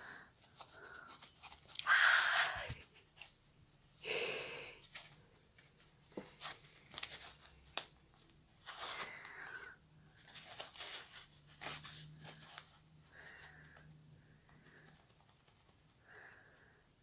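Cloth rustling and scratching as a cat grapples with, bites and kicks at a white roll held in a hand on a shirt, in irregular short swishes. The loudest swish comes about two seconds in and another about four seconds in, with light clicks of claws between.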